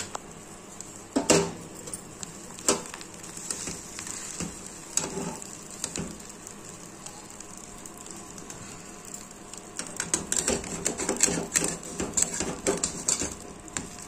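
Bread slices toasting in a little hot oil in a pan, with a faint steady sizzle. A utensil knocks against the pan a few times, then scrapes and clatters quickly for the last few seconds as the bread is turned and pressed.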